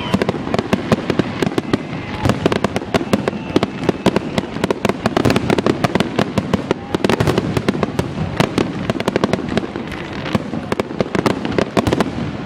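Aerial fireworks bursting in a dense, continuous barrage, several sharp bangs and crackles a second with no letup.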